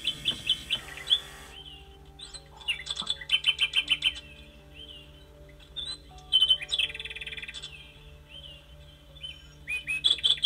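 NeXtime Nightingale cuckoo clock's electronic bird call: four short bursts of quick, high chirps a few seconds apart, over soft background music.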